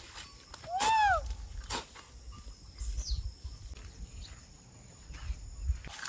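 A hoe chopping into dry soil a few times, with a single animal call about a second in that rises and falls in pitch over about half a second.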